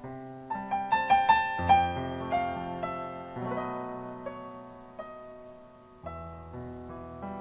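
Yamaha digital stage piano playing a solo tango interlude. A quick flurry of notes comes in the first two seconds, then slower notes over held chords, with a new low chord about six seconds in.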